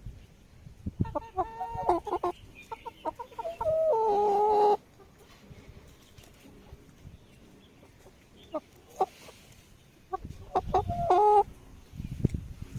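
Chickens clucking and calling in the coop, in two bouts with a quieter stretch between; the loudest is a drawn-out call a little before the middle.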